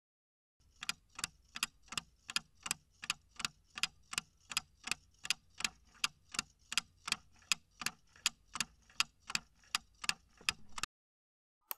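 Clock-ticking sound effect counting down the answer time, about three even ticks a second. It stops about a second before the end, and a quick double click follows.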